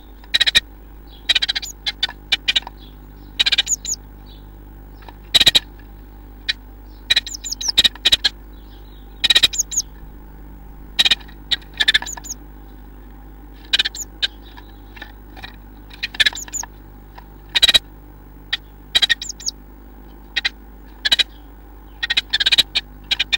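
A blue tit moving about inside a wooden nest box, making short, sharp sounds at irregular intervals, some of them high chirps. A steady low electrical hum runs underneath.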